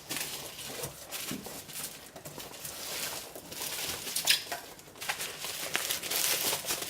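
Irregular rustling and handling noises of a parcel's packaging being opened, with a stronger burst of rustling about four seconds in.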